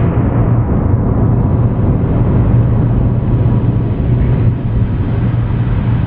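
Heavy press machinery running steadily: a loud, even mechanical noise over a strong low hum, with no separate strikes.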